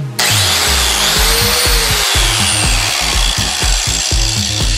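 Angle grinder switched on about a quarter second in and running, a loud hiss with a motor whine that rises in pitch and then slowly falls; it dies away near the end.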